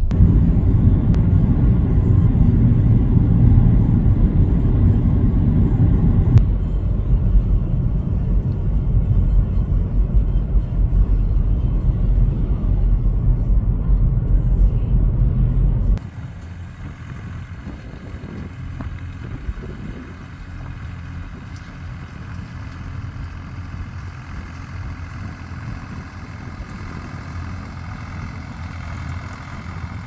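Rumble of road and wind noise from a moving car, heavy and deep, dropping suddenly to a quieter, steadier drone about halfway through.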